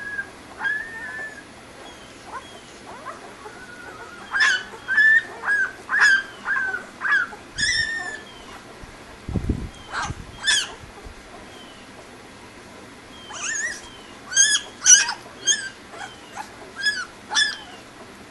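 Young German Shepherd puppies squeaking and whimpering as they nurse: short high-pitched cries, coming in runs of about two a second, with a dull thump about halfway through.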